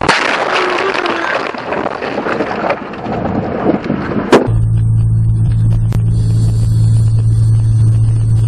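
Dashcam audio of a car crash on a snowy road: a sudden burst of noise, then about four seconds of rumbling, scraping and rattling as the car goes off the road, ending in a sharp knock. After that comes a steady low engine drone heard inside a car cabin.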